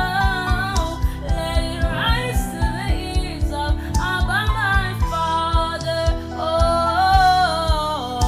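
Worship song: a woman singing long, wavering melodic lines over an instrumental backing of held chords and a steady low beat.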